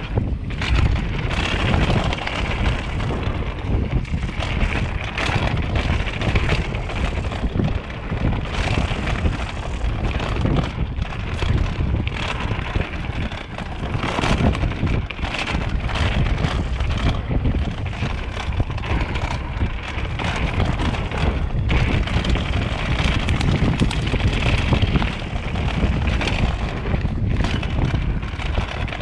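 Wind noise on the camera microphone of a mountain bike riding down a rough dirt singletrack. The tyres roll over dirt and rocks, and the bike rattles and knocks throughout.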